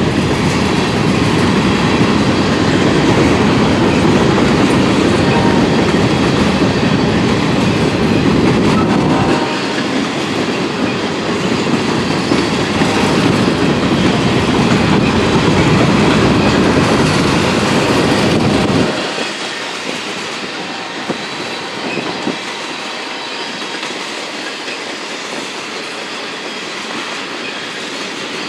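Freight train of covered grain hopper cars rolling past on steel wheels, a heavy low rumble. The low rumble drops away suddenly about two-thirds of the way through, leaving a lighter, quieter rolling sound.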